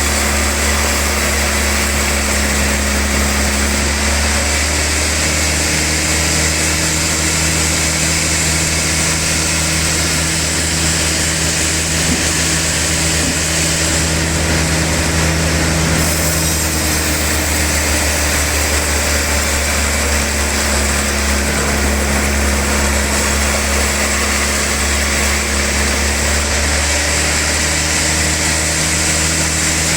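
Sawmill log saw running steadily, with a constant hiss over a low motor hum that shifts pitch a few times.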